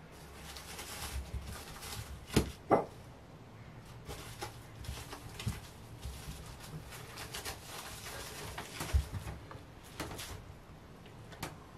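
Hand-handling sounds: cling film rustling and crinkling, with a few light knocks of small objects set down on a wooden tabletop, the loudest two close together about two and a half seconds in.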